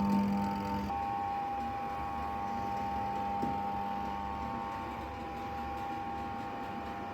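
Washing machine spinner motor running with a steady electric hum and whine. A strong low buzz drops out about a second in, leaving a steadier, higher whine.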